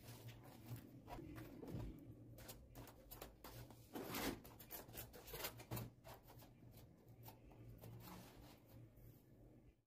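Sheets of paper and a cut board being handled and pressed flat on a table: faint, irregular rustling and tapping, busiest about halfway through, over a steady low hum.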